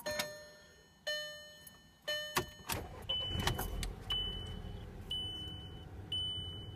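Three dashboard warning chimes, then the 2006 VW Passat's 2.0-litre turbocharged four-cylinder is started and settles into a steady idle, with a high warning beep about once a second. It idles smoothly now that its misfire from a failed coil pack has been fixed with new coil packs and spark plugs.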